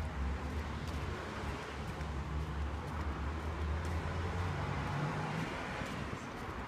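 Steady outdoor background rumble with a hiss, the low rumble easing a little near the end.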